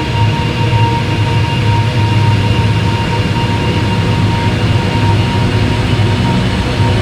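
Ambient wall of sound made by slowing a heavy-shoegaze song far down: a dense, steady drone of smeared distorted guitar with a held high tone over a heavy low rumble.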